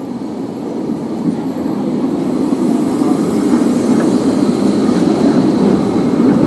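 Articulated electric street tram running on rails set in cobblestones, its rolling noise growing steadily louder as it approaches and passes close by, with a faint high whine from about three seconds in.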